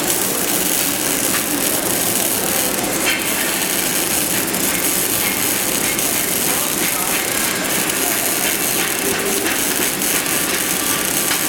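Electric welding arc crackling and hissing steadily while a vertical-position (3G) groove weld is run, with small sputtering pops.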